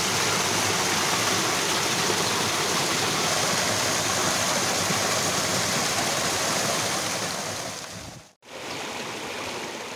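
Small rocky stream rushing and splashing as it pours in little cascades between boulders, a steady rush of water. It breaks off abruptly a little after eight seconds in and comes back quieter.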